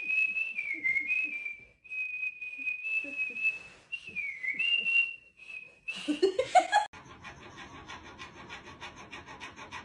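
A person whistling a high, wavering tune with short breaks for about six seconds. It is followed by a short, loud rising sound, then faint quick ticking about six times a second.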